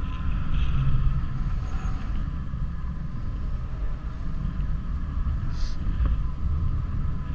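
Wind noise from the airflow of paraglider flight buffeting the microphone: a steady low rumble, with a faint steady high tone running beneath it.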